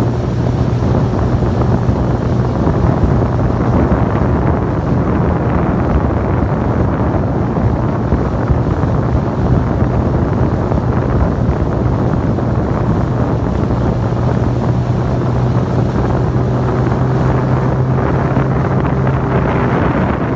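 Outboard motor of a coaching launch running at a steady speed with a constant hum, mixed with wind buffeting the microphone.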